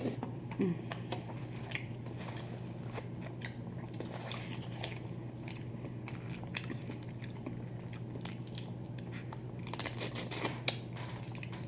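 A person chewing food close to the microphone, with wet mouth smacking and scattered small crunches and clicks; a cluster of louder crunching sounds near the end.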